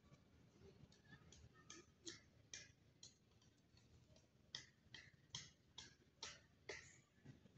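Faint, sharp ticks, about two a second, coming in two runs with a short gap between.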